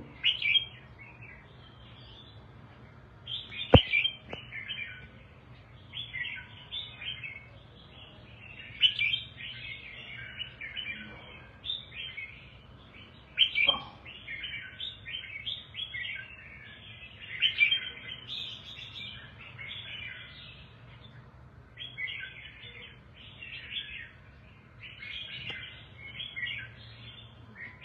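Caged red-whiskered bulbul singing: short, high warbling phrases that come every second or two, with a sharp click about four seconds in.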